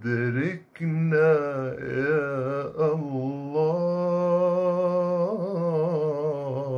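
A man singing Islamic inshad unaccompanied, a drawn-out melismatic run with a richly ornamented, wavering pitch and one long held note about halfway through.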